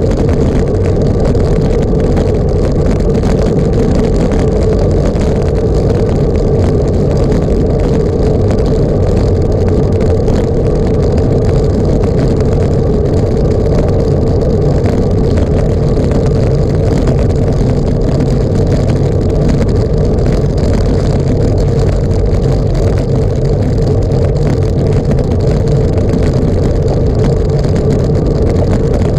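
Steady, loud drone of a vehicle in motion, unchanging throughout.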